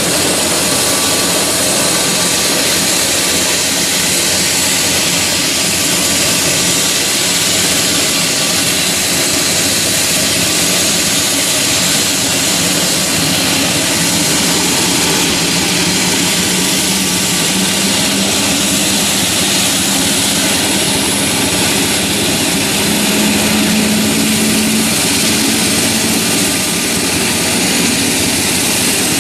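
Eurocopter EC145 helicopter running on the ground with its rotors turning: a steady turbine whine from its twin turboshaft engines over the rotor's rush.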